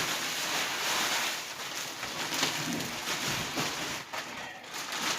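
Thick plastic mattress wrapping crinkling and rustling as it is pulled and handled, with a brief lull about four seconds in.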